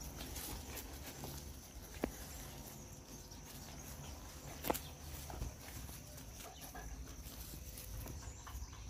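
Quiet scuffling of a puppy's paws on grass and dirt as it tugs and shakes a rag lure at the end of its leash, with two sharp clicks, the louder about four and a half seconds in.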